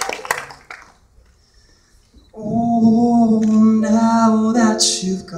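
Crowd cheering and applause die away in the first second. After a short hush, about two seconds in, a man begins singing at a grand piano, holding a long first note before moving to the next words.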